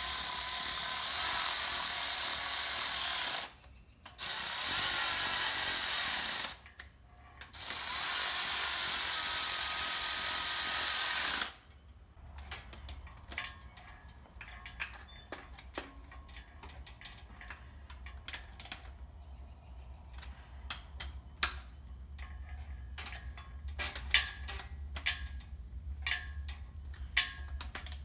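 Cordless ratchet running in three bursts of a few seconds each, spinning bolts on an engine block. After that come scattered sharp clicks and light knocks of the ratchet and bolts being handled.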